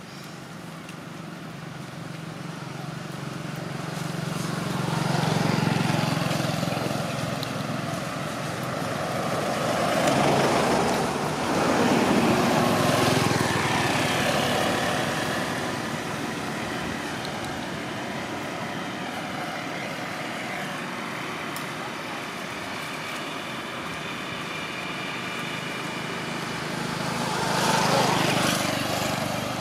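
Road vehicles passing close by, a motorbike among them, each swelling and fading: once about five seconds in, a longer pass from about ten to fourteen seconds, and again near the end.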